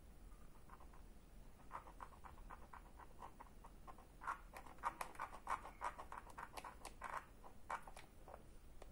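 Faint, irregular light clicks and scrapes, several a second, starting about two seconds in: multimeter probe tips tapping and scraping on the cell connections of a lithium scooter battery pack, hunting for a reading on a cell group that gives no voltage.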